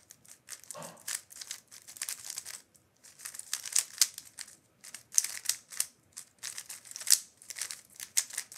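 DaYan GuHong Pro 55 mm speedcube being turned quickly: fast runs of light plastic clicks and scraping as the layers snap round, used straight out of the box with no setup, with short pauses about three and six seconds in.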